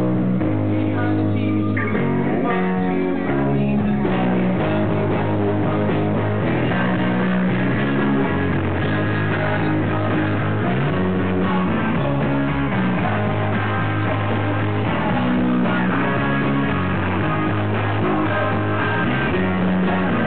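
Rock band playing live: electric guitars, bass and drums with a man singing into a microphone.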